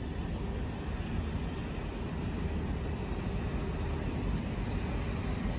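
Steady low rumble and hiss of a train running in the distance.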